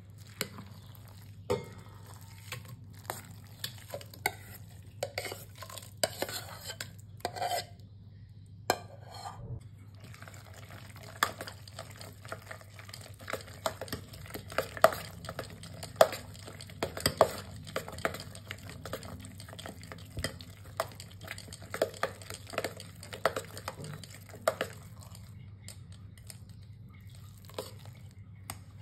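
A metal spoon beating thick malai (milk cream) by hand in a stainless steel bowl, with irregular clinks and scrapes against the bowl, thinning out near the end. The cream is being beaten until butter separates out for making ghee.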